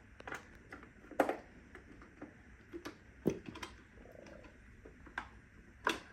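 Scattered light clicks and knocks, about half a dozen irregularly spaced, the sharpest about a second in and near the end: hands handling a Neato Botvac robot vacuum while getting at its battery.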